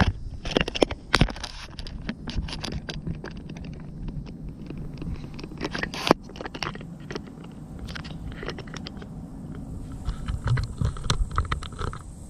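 Handling noise: irregular clicks, knocks and scrapes close to the microphone as a camera is set up, over a steady low rumble.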